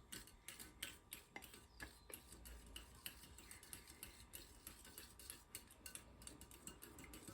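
Faint, irregular light clicks of a utensil tapping against a bowl while wet pancake batter ingredients (milk, egg, oil) are stirred together.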